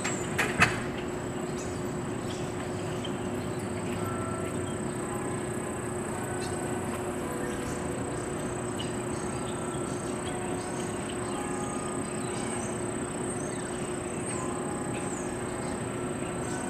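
Outdoor ambience: a steady hiss with a constant low hum and a constant high-pitched whine, scattered faint chirps, and a sharp double click about half a second in.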